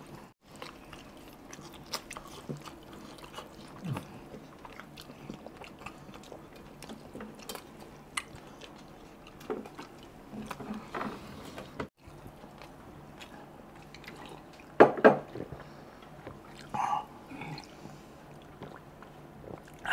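Mouth and hand sounds of people eating chicken curry and rice with their fingers: chewing, biting and wet smacking, with a louder pair of sounds about fifteen seconds in.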